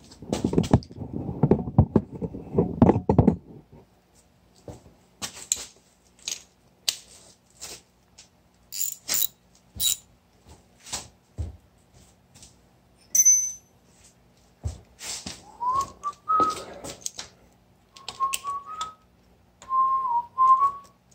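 Handling rustle at first, then scattered metallic clicks and clinks of a wrench and ratchet working on the engine, with one short metallic ping. In the last quarter a man whistles a wavering tune as he works.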